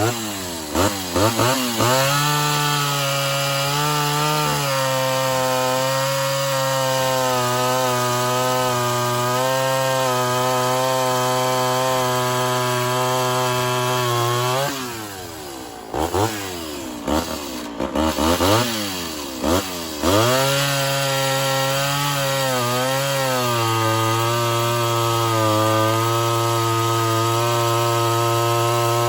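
Ported Homelite Super XL Auto two-stroke chainsaw revved in quick blips, then held at full throttle under load for a long steady cut through wood. About halfway through it drops off, blips a few more times, and settles into a second steady cut.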